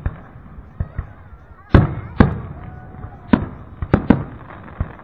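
Aerial fireworks shells bursting in a rapid series of sharp bangs, each with a short rumbling tail. The loudest pair comes about two seconds in, and a quick cluster of bangs follows near four seconds.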